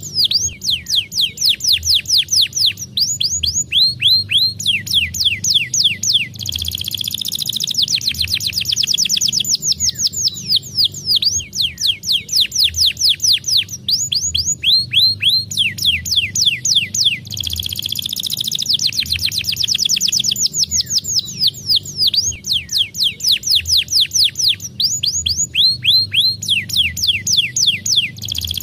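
Domestic canary singing a fast, continuous song: rows of quick, repeated downward-sweeping notes, roughly ten a second, switching to a new phrase every second or two, with denser buzzy trills about 7 and 19 seconds in. A faint steady low hum runs underneath.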